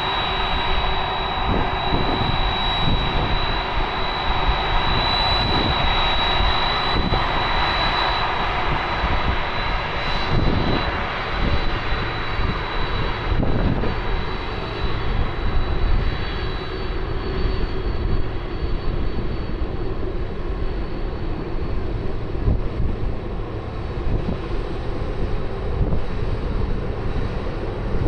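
Jet airliner engines running, a steady rumble with a high whine on top that fades away after about ten seconds.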